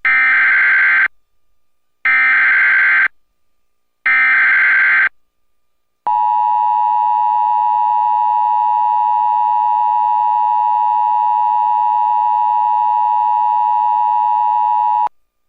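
Emergency Alert System signal for a flash flood warning. First come three one-second bursts of the buzzing digital SAME header, which encodes the alert's event, area and valid time. Then, from about six seconds in, the steady two-tone EAS attention signal sounds for about nine seconds and cuts off sharply.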